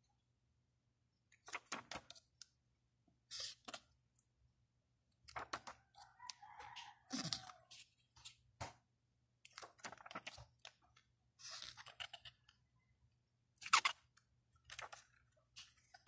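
Paper pages of a CD lyrics booklet being turned and handled, rustling and crinkling in short bursts every second or two, the sharpest one about three-quarters of the way through.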